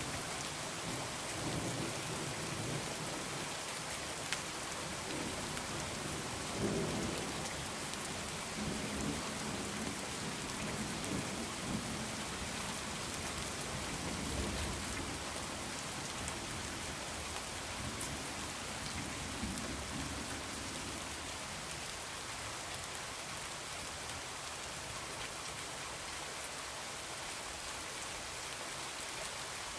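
Steady heavy rain with rolling thunder, rumbling low several times in the first two-thirds and easing off after that.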